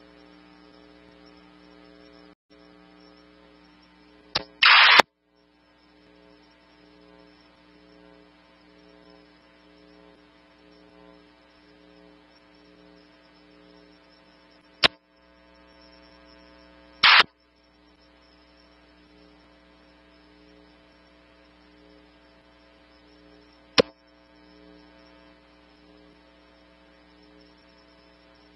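Steady electrical hum on a police radio scanner feed, broken by a few sharp clicks and two brief loud bursts of noise about five and seventeen seconds in: radio channel key-ups and squelch with no speech.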